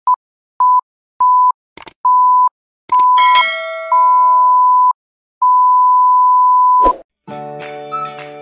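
A steady electronic beep tone sounding about seven times, each beep longer than the last, with a couple of clicks and a ringing chime about three seconds in and a thud near the end; then background music begins.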